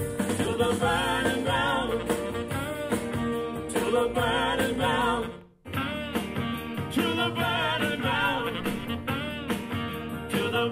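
A pop song with a male singer plays through a Denon Envaya Bluetooth speaker. It cuts out briefly about five and a half seconds in, then carries on through a Cabasse Swell portable speaker, which sounds unnatural, with too much rumbling bass and little precision.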